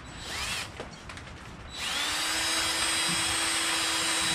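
DeWalt cordless drill spinning a small wire wheel against a brake caliper slide pin to scrub off rust. It runs briefly near the start, then about two seconds in it spins up with a rising whine and runs steadily.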